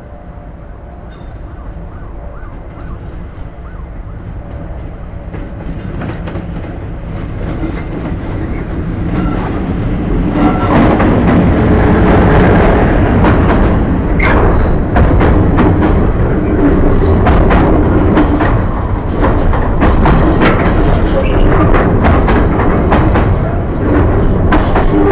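Class 56 diesel freight locomotive, with its Ruston-Paxman V16 engine, approaching and growing steadily louder until it passes at about ten seconds. It is followed by loaded container wagons rolling by, their wheels clicking repeatedly over the rail joints.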